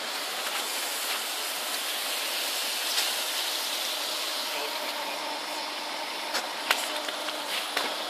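Plastic panels of a shopping-cart shelter rattling in a steady buzz, shaken by bass from a car's 18-inch Ground Zero SPL subwoofer, with a few sharp clicks.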